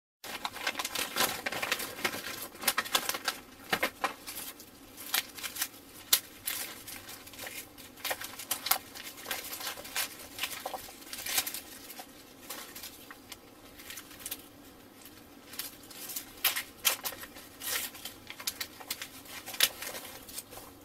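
Cigarettes being shaken out of their paper packs onto a pile: a dense, irregular patter of light clicks as they drop onto one another, with crinkling of the packs and rustling of a plastic glove.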